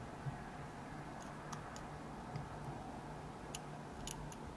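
Faint, scattered metallic ticks of a hook pick working the pins inside a Schlage Everest lock cylinder held under tension, with a few sharper clicks near the end.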